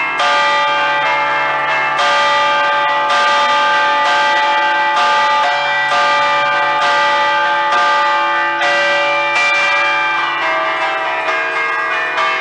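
Five Ambrosian church bells in D, cast by Giorgio Pruneri in 1875, chimed by hand on clapper cords in a festive allegrezza tune. Each bell is struck again and again, and the tones overlap and ring on.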